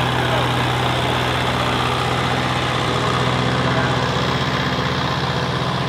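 Heavy super stock pulling tractor, a modified Massey Ferguson 2805 with a diesel engine, idling steadily.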